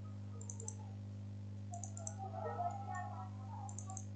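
Computer mouse clicking in three short clusters of quick clicks, over a steady low electrical hum.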